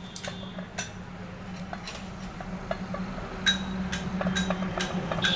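Light, irregular metallic clicks and taps as a steel truck brake shoe and its new lining are handled and pressed into place on the brake drum, over a steady low hum.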